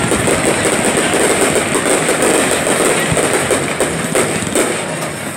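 Fireworks display: a rapid barrage of shells bursting and crackling that runs together into a continuous loud rumble, with a couple of sharper bangs about four seconds in.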